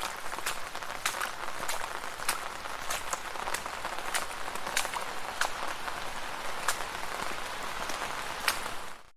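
Rain falling on a street: a steady patter with many separate heavy drops striking sharply through it. The sound cuts out briefly right at the end.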